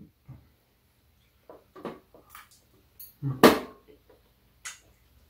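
Scattered clicks and knocks of chopsticks and dishes on a tray table during a meal, with one louder knock about three and a half seconds in.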